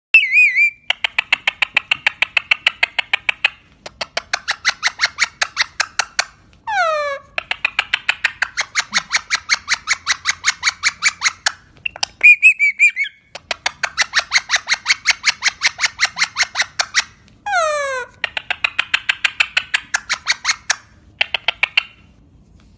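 Pet parrot calling: long runs of rapid clicking notes, about ten a second, twice broken by a steeply falling whistle and twice by a short warbling trill.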